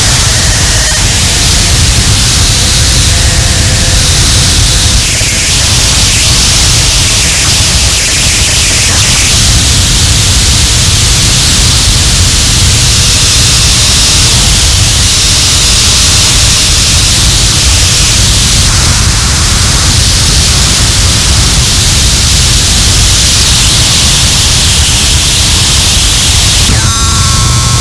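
Harsh noise music: a loud, dense wall of distorted static and hiss over a heavy low rumble, steady throughout, with a few pitched feedback-like tones surfacing near the end.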